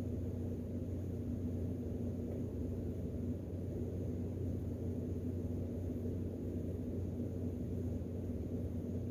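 A steady low hum of background room noise, unchanging throughout, with no distinct events.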